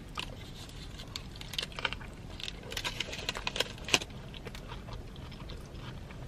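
Aluminium foil wrapper of a burrito crinkling as it is handled, with chewing, in a run of sharp crackles that is densest from about one and a half to four seconds in.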